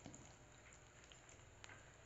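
Faint sizzling of whole spices (cumin seeds, bay leaves, dried red chillies and cinnamon) in hot oil in a kadai, a tempering tadka, with a few scattered small crackles and pops.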